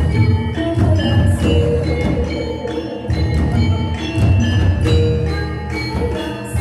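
Javanese gamelan playing: bronze metallophones ringing a melody of struck notes over steady low drum beats.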